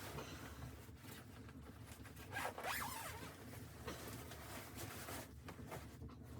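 Fabric rustling with a zip being pulled, the loudest pull about two and a half seconds in.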